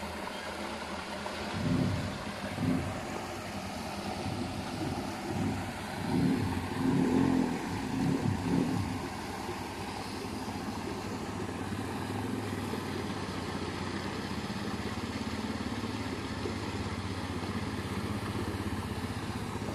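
A motorcycle engine running steadily, with irregular louder rumbles in the first half.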